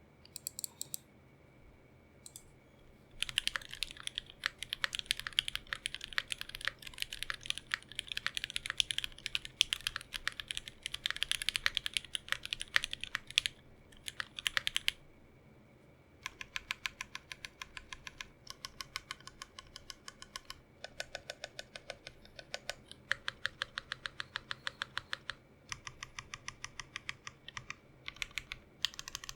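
Typing on an Aria TKL mechanical keyboard with lubed and filmed Cherry MX Black linear switches in an aluminium plate on a gummy O-ring mount, capped with GMK ABS Cherry-profile keycaps. A few keystrokes, then about ten seconds of fast continuous typing, a short pause, then runs of steady, evenly spaced key presses with brief gaps between them.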